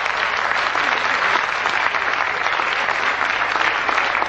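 Audience applauding after a stand-up punchline: many hands clapping in a dense, steady wash.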